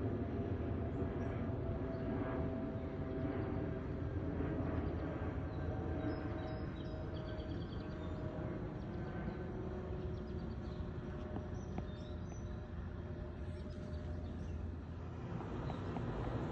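Twin-engine jet airliner passing high overhead: a steady, distant low rumble of its engines. The rumble dips briefly near the end, then rises again.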